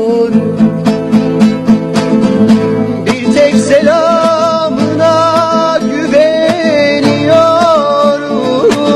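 Instrumental passage of a Turkish folk song: a plucked string instrument strums a steady rhythm, and about three and a half seconds in a wavering, ornamented melody line enters over it.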